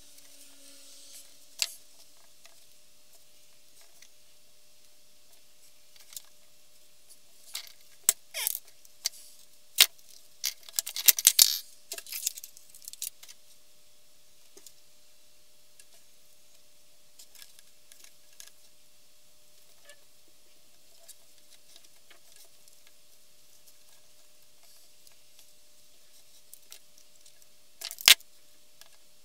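Hand-stitching a thick 3 mm cowhide leather holster: thread pulled through the stitch holes and the leather handled, giving scattered light clicks and rustles with a busier run of them partway through. A sharp click near the end as the pliers are picked up.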